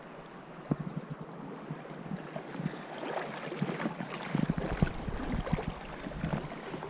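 Wind on the microphone and running river water, a steady rushing hiss, with scattered small taps and rustles.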